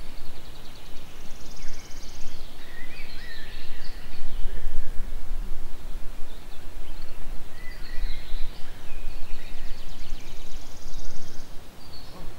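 Songbirds singing: chirping phrases with a fast high trill about a second in and another near the end, over a steady low rumble.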